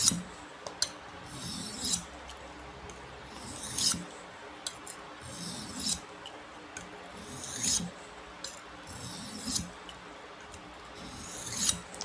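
A knife blade drawn over a Buck pocket natural sharpening stone in light finishing strop strokes, a short swishing scrape every one to two seconds.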